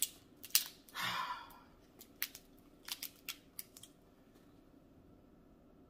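Sharp clicks and small snaps of king crab leg shell being pulled apart by hand, with a short noisier sound about a second in. The clicks die away after about four seconds.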